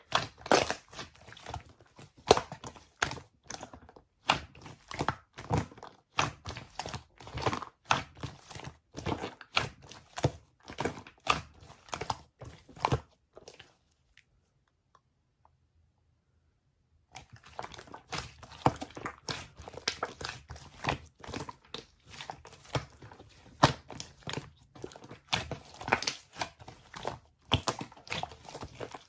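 Close, dense crunching and crinkling, a quick irregular run of sharp crackles and clicks, broken by about three seconds of silence halfway through.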